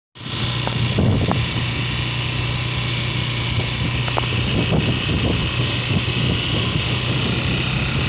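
Motor scooter's small engine running steadily at low riding speed, heard from the rider's seat with a steady hiss over it.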